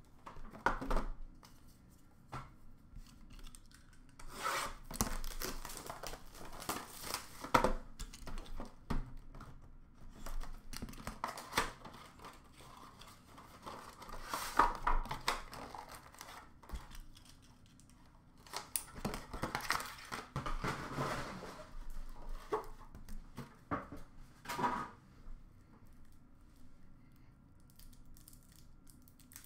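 Hands tearing and crinkling the plastic wrap and cardboard packaging of trading-card boxes, in several bursts of rustling and tearing with quiet pauses between.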